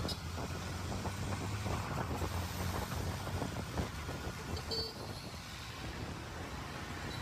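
Road noise from a moving vehicle: a steady low rumble of engine and tyres, with wind buffeting the microphone. A short, faint high tone sounds about five seconds in.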